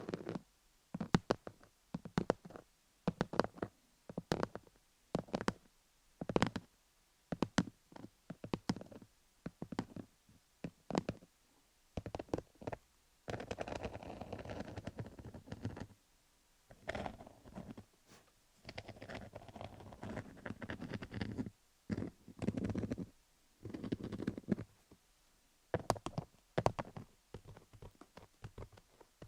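Fingers scratching over a dummy head studded with cubic-zirconia gems, close to the microphone. It opens with short, separate scratchy strokes about once or twice a second, then turns to longer stretches of continuous rubbing about halfway through.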